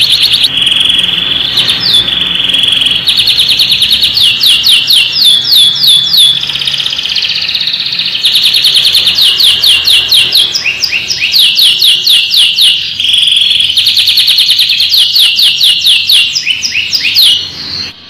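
Domestic canary singing without pause: fast runs of rapidly repeated sweeping notes alternating with short held, steady tones, a full song of trills and rolls.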